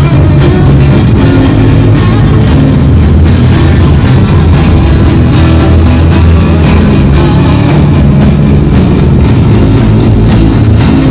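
Live rock music, played loud: electric guitar with drums keeping a steady beat.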